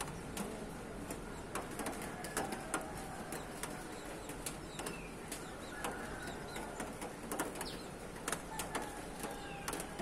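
Several birds calling together: many short sharp chips and brief whistled notes overlapping at an uneven pace, over a low steady background hum.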